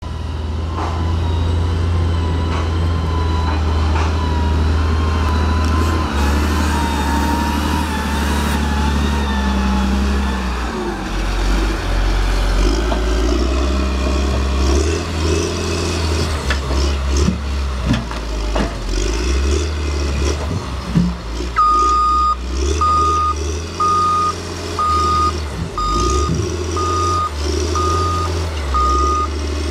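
CAT 938G wheel loader's diesel engine running and changing pitch as it works, with a wavering whine in the first ten seconds and several knocks as the log grapple handles logs. About two-thirds of the way through, its reversing alarm starts, beeping steadily about three times every two seconds as the loader backs up.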